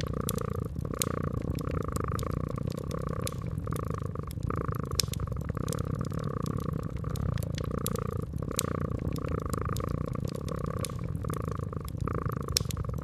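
A cat purring steadily, swelling and fading about once a second with its breathing, over a wood fire's crackle of scattered sharp pops.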